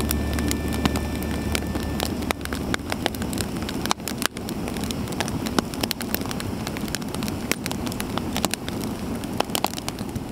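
Campfire in a fire pit crackling, with many sharp irregular pops and snaps over the steady rush of the flames.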